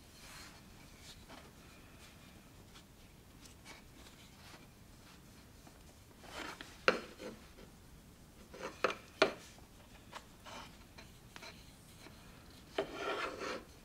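Hands handling and rubbing a carved wooden hammer handle, faint throughout. There are a few sharp ticks a little past the middle and a short scraping rub near the end.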